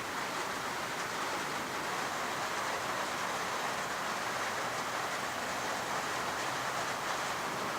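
Heavy rain falling steadily, an even unbroken hiss with no single drops or knocks standing out.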